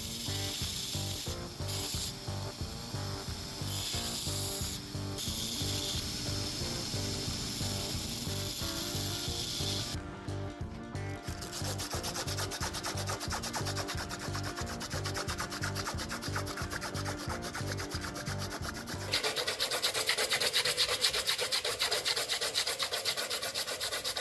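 Sandpaper rubbed back and forth by hand over a small forged knife's handle of red acrylic scales and brass pins, in quick, even rasping strokes. The sanding gets louder and brighter about three-quarters of the way through.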